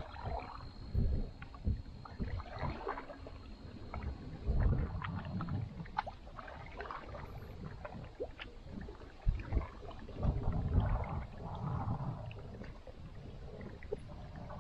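Canoe paddles pulling through the water stroke after stroke, with splashing, drips and gurgles, a few light knocks and several low thuds.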